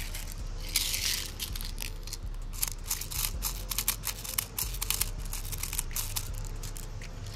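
Rapid irregular plastic clicks and rattles from handling and reloading the BB shell of a Double Eagle M56B spring airsoft shotgun.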